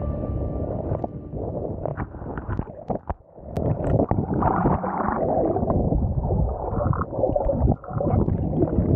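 Muffled water rushing and gurgling around an action camera that is dipped underwater beside a hydrofoil board, with bubbling crackles and splashes; the sound briefly drops away about three seconds in.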